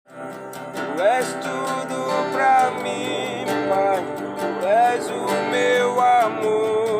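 Music: acoustic guitar strumming under a melody line that slides up into held notes.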